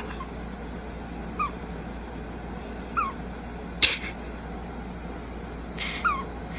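Squeaker inside a plush toy car squeaking in short falling squeaks as a greyhound chews it, three times, with a sharp click from the chewing just before the middle and a brief rustle near the end.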